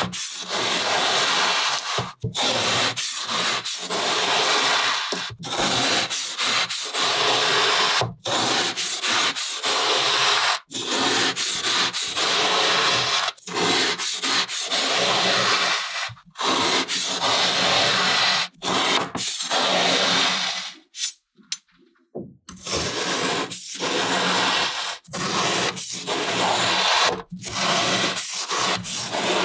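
Knife blade slicing through packed kinetic sand in repeated strokes, a gritty rasping with short breaks between cuts and one brief pause about two-thirds of the way through.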